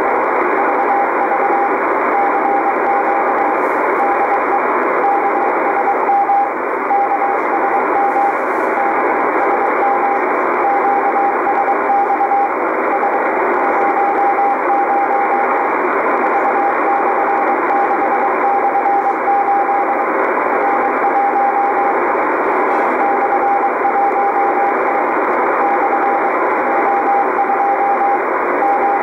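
Morse code marker from the KSM maritime coast station, heard through a shortwave communications receiver in CW mode. A single steady-pitched beep is keyed on and off in dots and dashes over loud, steady band hiss.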